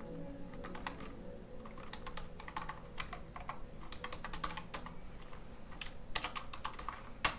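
Typing on a computer keyboard: irregular key clicks, a quick flurry about six seconds in, then a louder single keystroke near the end.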